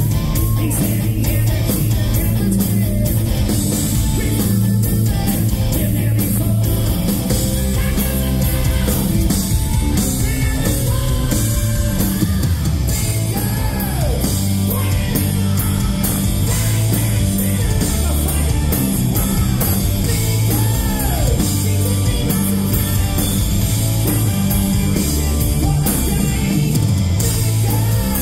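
Hard rock band playing live on a loud PA: distorted electric guitars, bass and drums, with a male lead singer's voice over the band at times, heard from the audience.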